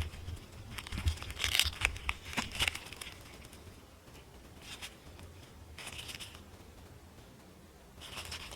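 A silicone mold being flexed and peeled off cured resin cat-paw pieces gives a cluster of crackling, tearing rustles and small sharp clicks in the first three seconds. Fainter rustles follow around five and six seconds in.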